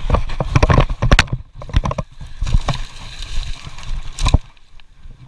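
A hard plastic fold-open tackle box tumbling down a steep rocky bank after its handle broke off. It clatters and knocks against stones in an irregular run of impacts, with a last loud knock about four seconds in.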